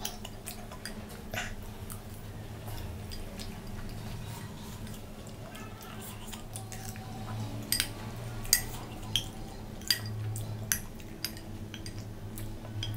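Close-miked eating: a steel spoon clicking and scraping against a glass bowl of chickpea curry, with wet chewing and lip smacks. The clicks come more often in the second half, over a faint steady low hum.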